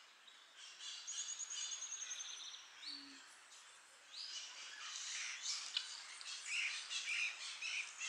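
Wild birds chirping and singing: a rapid high trill about a second in, then busier overlapping chirps and calls from about halfway.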